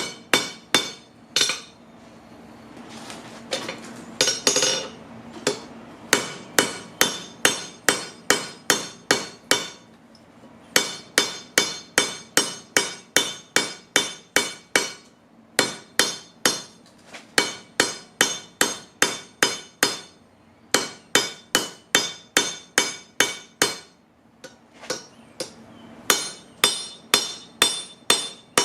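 Hand hammer striking steel on a railroad-track anvil in runs of about three ringing blows a second, with short pauses between runs: forging a taper on a rail spike.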